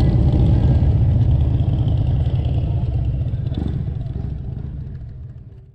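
V-twin motorcycle engines idling together with a low, pulsing rumble, fading away to nothing over the last two seconds.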